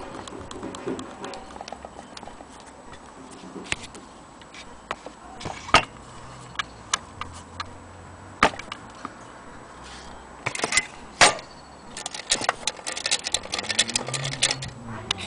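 Irregular sharp clicks and knocks of hard objects being handled, with a quick run of ticking in the last few seconds.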